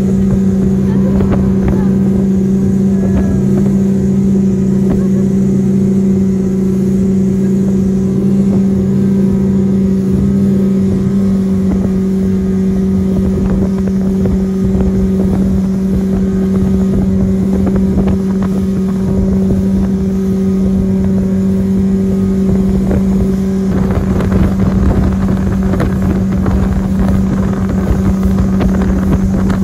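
Speedboat engine running with a steady drone as the open boat moves across the water, with wind and water rushing past. About three-quarters of the way through, the engine note shifts and the rush of wind and water grows louder.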